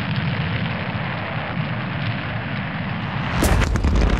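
A steady rushing noise while toy monster trucks slide across the ice. About three and a half seconds in comes a sharp knock as a truck hits the camera, followed by close rumbling and scraping on the microphone.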